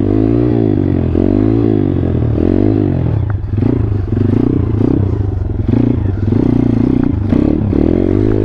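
Thumpstar 140cc pit bike's single-cylinder four-stroke engine revving up and down under the throttle while riding a wheelie, then held at a steady high rev from about three seconds in.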